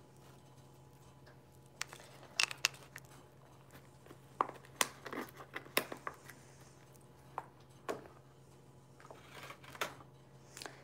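Scattered light taps, clicks and brief rustling as small objects are handled and set down on a tabletop, over a faint steady low hum.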